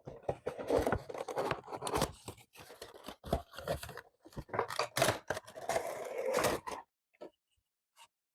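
A Funko Pop box, cardboard with a plastic insert, being opened: a dense run of crackling, clicking packaging noise that stops about seven seconds in, then a few faint ticks.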